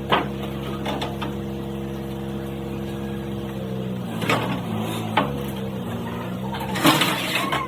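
An engine running steadily at idle, its hum shifting slightly about four seconds in, with a few sharp metal knocks and clanks, the loudest near the end.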